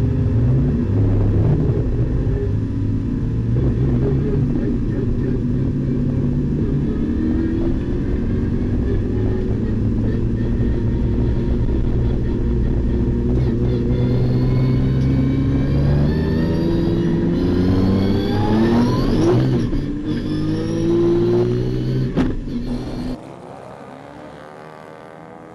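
Cockpit sound of a Nissan R32 Skyline's RB26 twin-turbo straight-six, idling and then running at low revs as it pulls away, with the pitch rising in several sweeps as it accelerates through the gears. A sharp knock comes near the end, then the sound drops suddenly to a much quieter car engine.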